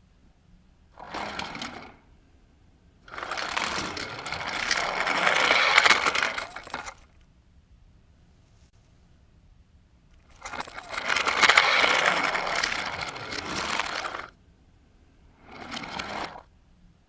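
A small toy car running along a toy race track, twice, each run about four seconds long; the first grows louder toward its end. A short burst of the same noise comes a second in and another near the end.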